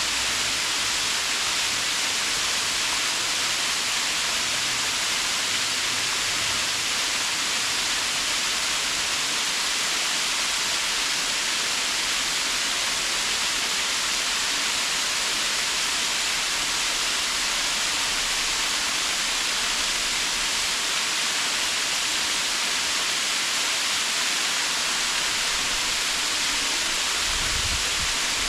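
Waterfall rushing steadily: a continuous, even hiss of falling water, brightest in the upper range.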